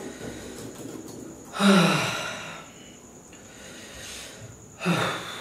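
A man breathing hard through his open mouth, with a loud voiced gasp falling in pitch about a second and a half in and another near the end: panting against the burn of an extremely hot chilli.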